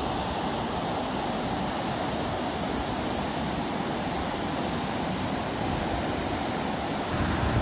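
Rough sea surf breaking and foaming up the beach in the wind, a steady rushing noise that grows a little louder near the end.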